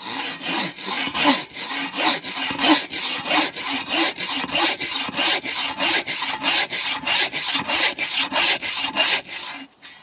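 Bow saw cutting through a log in fast, even back-and-forth strokes, about three a second, which stop just before the end. Its thin blade runs through the cut with almost no friction.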